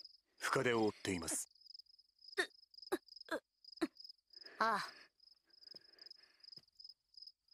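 Crickets chirping in a steady, fast pulsing rhythm, with a few short spoken phrases and exclamations in Japanese over them, about a second in and again around the middle.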